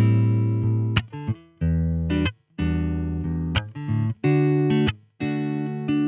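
Guitar playing sustained chords, a new chord about once a second, each cut off short before the next.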